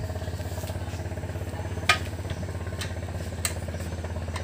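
Small engine of a racing boat running steadily at idle, an even, fast-pulsing drone. A sharp click about two seconds in, and a fainter one about a second and a half later.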